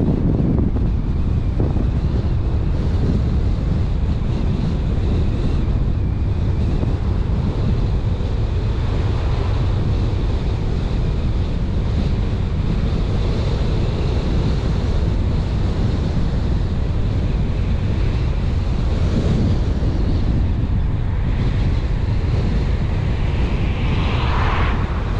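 Steady wind rush and tyre noise from a car driving along the road, with wind buffeting the microphone. A short swell of higher noise comes near the end.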